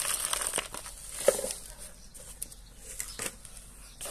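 Volcanic stone gravel pouring from a plastic pot into a plastic flowerpot, a dense rattle that stops about half a second in. About a second later comes a single sharp click, then a few faint clicks and rustles as a hand works inside the pot.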